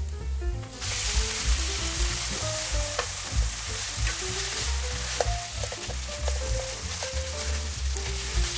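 Hard leftover japchae (glass noodles with vegetables) dropped into hot scallion oil in a nonstick frying pan, sizzling loudly from about a second in while chopsticks stir it, with a few light ticks of the chopsticks against the pan. It is being stir-fried over medium heat to soften the noodles again.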